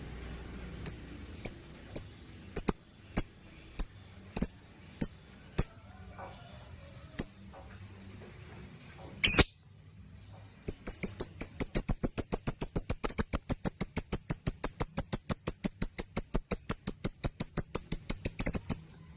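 Lovebird calling: sharp, high single chirps about every half second, then from about eleven seconds a long, fast run of chirps, several a second, lasting about eight seconds. This is the rapid 'ngekek' chatter.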